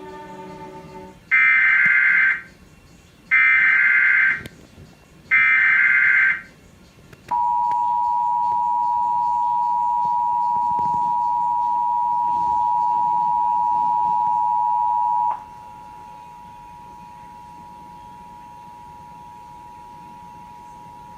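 Emergency Alert System tornado warning: three short, loud bursts of the digital SAME header data, each about a second long. Then the EAS two-tone attention signal comes in as a steady dual tone, drops sharply in volume about 15 seconds in, and carries on quieter.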